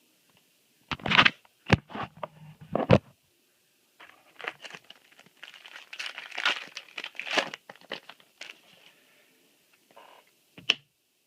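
A Yu-Gi-Oh booster pack's foil wrapper being torn open, with a few sharp rips, then crinkling for several seconds.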